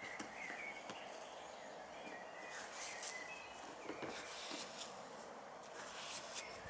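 Grass seed being scattered by hand from a box onto bare earth: short rustling hisses with each cast, several times over. Small birds chirp briefly in the background.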